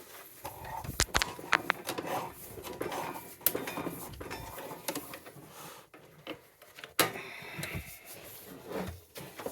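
Irregular clicks, knocks and rattling of equipment being handled, with sharp knocks about a second in, midway and near 7 seconds.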